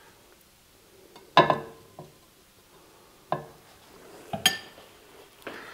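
A metal spoon knocking and clinking against a bowl and plate several times while scooping a soft filling, with the loudest knocks about a second and a half in and near the end; one rings briefly.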